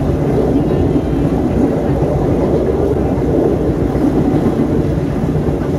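A local passenger train running at speed, heard from inside the coach: a steady, loud rumble of the wheels and running gear.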